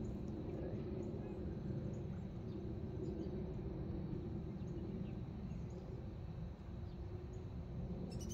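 Steady low outdoor background noise with no distinct events, and a bird starts chirping right at the end.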